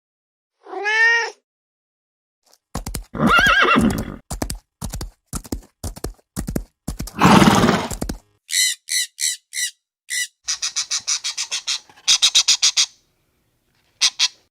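A cat meows once, about a second in. Then a horse whinnies several times: long quavering neighs, followed by quick runs of short, high, pulsing whinnies.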